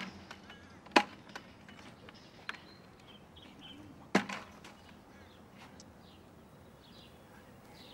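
Three loud, sharp knocks, as of something hard being handled: one right at the start, one about a second in and one about four seconds in, with a few lighter clicks between.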